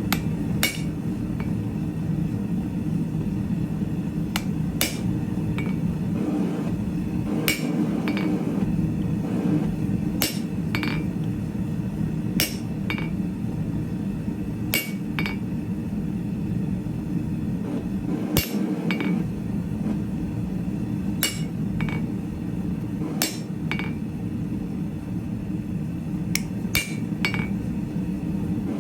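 Hand hammer striking steel stock on an anvil in single, unhurried blows every one to three seconds, each with a short metallic ring, over a steady low hum.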